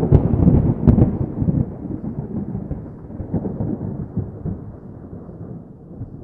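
Thunder: sharp cracks right at the start and again about a second in, then a long low rumble that slowly fades away.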